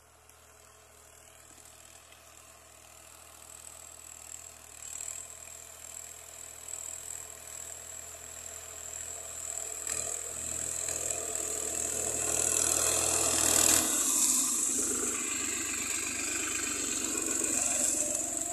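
Compact diesel tractor engine running steadily while it works an earthing-up implement along a sugarcane row, growing louder as it comes closer.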